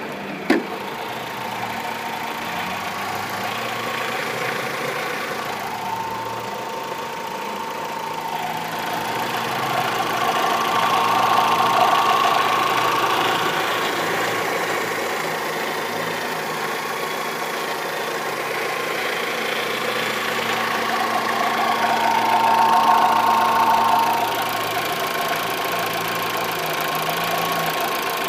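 Fiat Marea engine running with an abnormal engine noise that the owner is trying to show. It gets louder twice, about ten seconds in and again a little after twenty seconds, with a sharp click just after the start.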